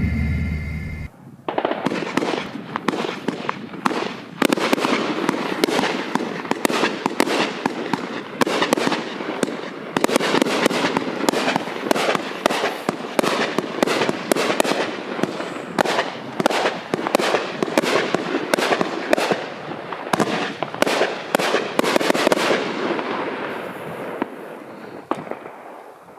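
Raccoon 42-shot, 500-gram consumer firework cake firing: a rapid, continuous string of tube launches and aerial breaks with crackling, which thins out and fades away near the end.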